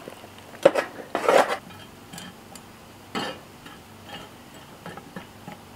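Charcoal briquettes being set with metal tongs onto a cast-iron camp Dutch oven lid among other coals: a few clinks and scrapes of metal and charcoal, the loudest within the first second and a half, another about three seconds in, and light ticks after.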